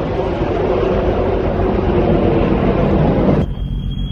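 Jet noise from an F-35B Lightning II's F135 turbofan, a loud steady rumble just after its fly-by. About three and a half seconds in the sound changes abruptly to a quieter rush with a thin high whine that slowly rises in pitch.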